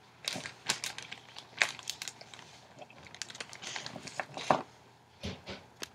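Foil-wrapped chocolates being handled and set down on a whiteboard: crinkling foil with small irregular taps and clicks.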